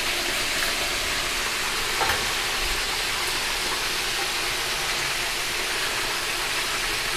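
Chicken wings deep-frying in hot oil in an aluminium wok: a steady bubbling sizzle from the first fry, the wings still pale and left to set. A single light knock comes about two seconds in.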